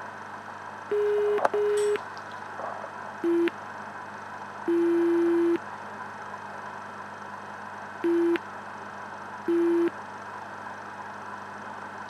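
Jeti Duplex telemetry alarm beeps: a steady mid-pitched tone sounding in an irregular pattern of short and longer beeps, six in all, over a steady hiss with a few sharp clicks. It is the receiver low-voltage alarm, going off as the receiver voltage drops.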